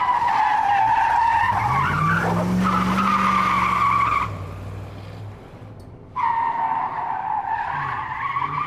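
Tyres squealing in two long squeals, the second starting about six seconds in, with an engine revving up and easing off under the first.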